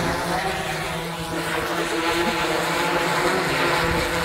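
JOUAV CW-15D VTOL fixed-wing drone's electric propellers running with a steady, even-pitched hum as it comes in to land.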